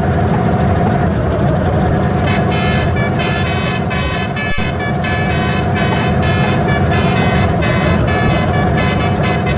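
Basuri 'telolet' multi-tone musical horn playing a rapid tune of short notes, starting about two seconds in, over a steady low rumble.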